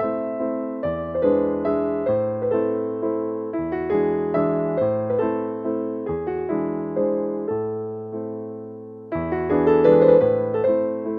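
Background piano music: a gentle melody of struck notes that each fade away, a little louder near the end.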